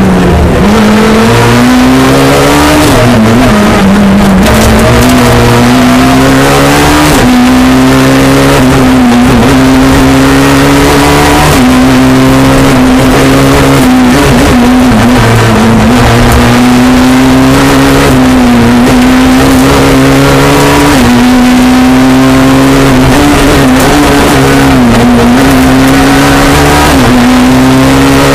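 Rally car engine heard from inside the cabin, held at high revs under hard acceleration. The revs dip and climb again every few seconds as the driver lifts for bends and shifts up from second to third gear. Very loud throughout.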